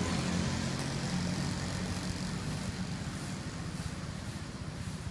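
A car's engine humming as it passes close by and fades away, over steady street traffic noise.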